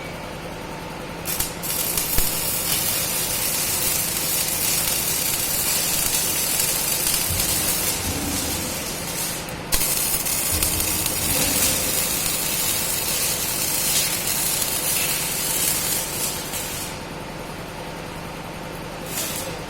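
CO2 MIG welding arc burning on a steel pipe joint: a steady sizzling hiss that starts about a second and a half in, breaks briefly about halfway, and stops near the end.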